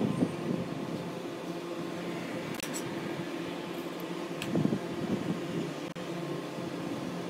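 Steady motor hum, as from a running fan, with a few faint clicks and soft low knocks.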